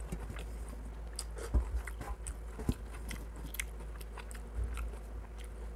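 Close-miked eating by hand: fingers scraping and gathering rice and curry on a stainless-steel plate, with wet chewing and mouth clicks. Irregular short taps and clicks throughout, the sharpest about a second and a half in, over a steady low hum.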